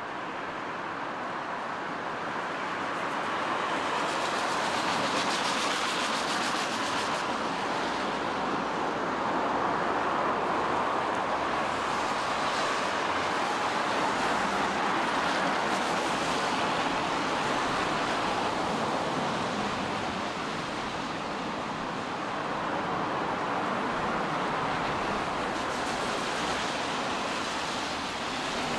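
Rain falling, with the hiss of tyres on a wet road. It swells into a long rush and then again near the end as vehicles pass.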